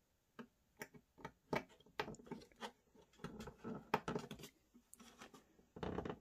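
Irregular small clicks and rustles of fingers handling thin hookup wires and pushing a clip-on wire connector onto a model railway point motor's terminal. There is a slightly longer scuffle near the end.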